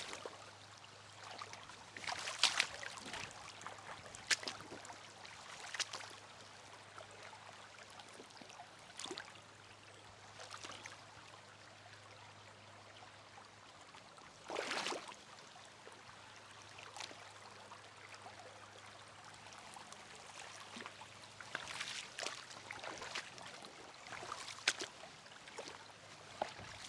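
Creek water trickling and gurgling steadily over rocks. Scattered short sharp splashes or knocks cut in now and then; the longest and loudest comes about halfway through.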